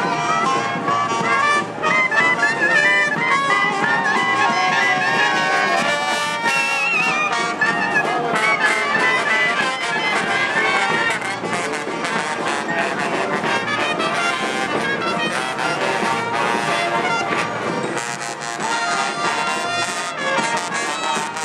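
Street brass band playing: horns carry a melody over drums.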